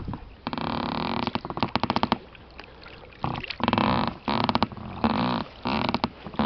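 Oars working in the oarlocks of an inflatable PVC rowing boat, giving a rasping creak with each stroke, about seven creaks in a row.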